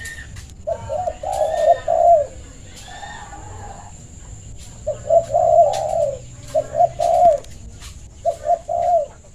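Spotted dove (tekukur) decoy bird calling in closely spaced coos, in three bouts: about a second in, around the middle, and near the end. A faint steady high whine and scattered short clicks run underneath.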